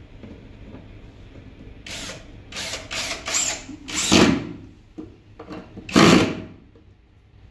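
Cordless drill driving screws into a white cabinet panel in short bursts, about six or seven of them in quick succession starting about two seconds in, with the ones near the middle and the end the loudest.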